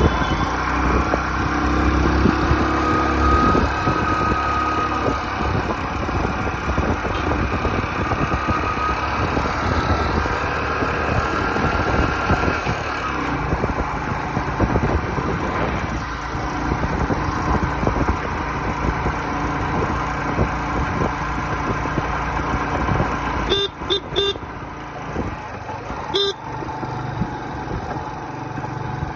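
Motorcycle riding along at speed, its engine running under a steady rush of wind and road noise. Near the end a horn beeps twice in quick succession, then once more.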